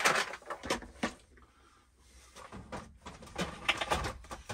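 Knocks and clatter of items being handled in a metal storage locker, as a plastic organiser box is taken out and set down on the bench. A burst of knocks comes first, then a quiet spell, then more clattering near the end.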